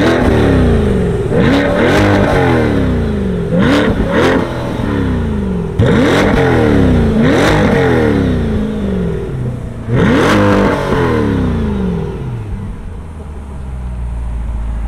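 C8 Corvette's V8 free-revved while parked: about ten sharp rises in engine pitch, each dropping back, in quick clusters of two or three, then settling to a steady idle for the last few seconds.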